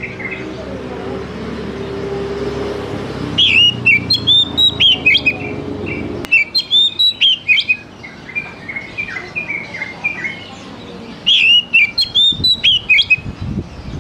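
Oriental magpie-robin singing: three loud phrases of quick, varied whistled notes a few seconds apart, with softer notes between them. A low hum lies under the song at first and stops abruptly about six seconds in.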